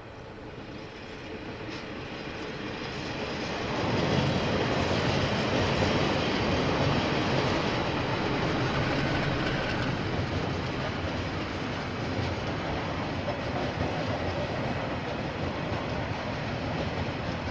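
KiwiRail freight train passing, hauled by diesel-electric locomotives: the rumble builds over the first four seconds as the locomotives approach, then holds steady as the train rolls by with some clickety-clack of wheels on rail joints.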